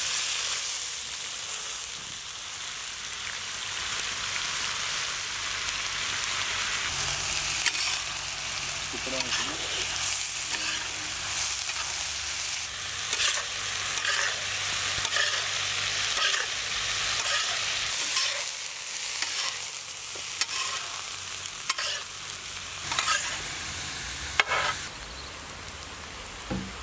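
Finely chopped onions sizzling and frying in hot oil on a wide tawa griddle, turning brown. A spatula stirs them again and again, with short scraping strokes over the hiss from about halfway in.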